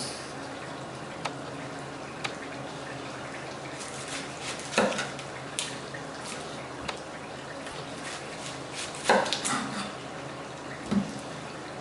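Scattered light clicks and knocks of kitchen work over a steady background hiss, with louder clatters about five and nine seconds in.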